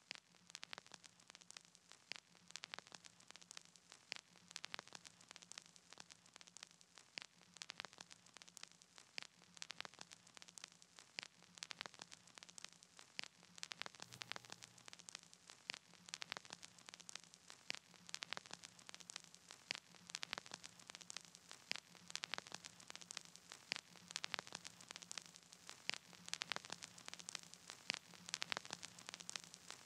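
Near silence: faint irregular crackling clicks over a low, steady hum, the background noise of the recording with no music playing.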